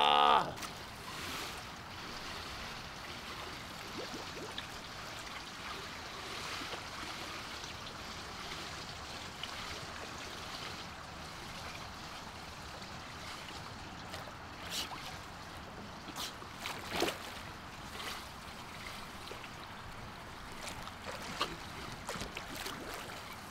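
Pool water sloshing and lapping as a person swims, with a few short splashes in the second half.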